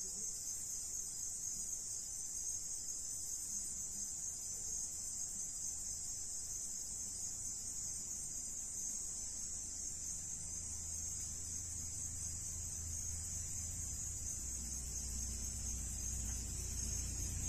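Steady high-pitched chirring of crickets, unbroken throughout. A low engine rumble from a vehicle grows in the last few seconds.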